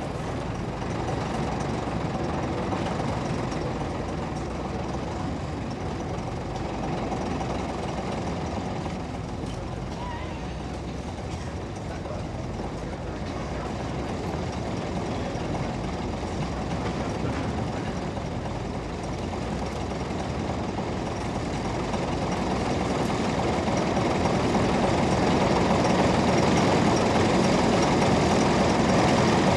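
Heavy truck engine running at low speed, getting louder in the last several seconds as the truck comes close.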